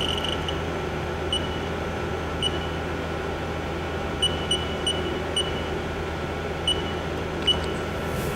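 Haas VF6/50 vertical machining center humming steadily at standstill, with about ten short, high beeps at uneven intervals from keypresses on its Haas control as the spindle gear change is set up.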